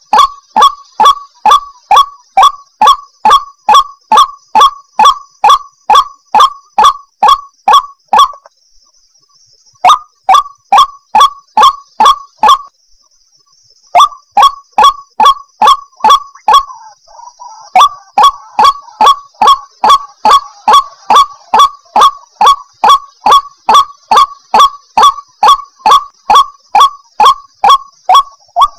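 White-breasted waterhen calling: a fast, even run of loud repeated notes, nearly three a second, breaking off twice for about a second before carrying on.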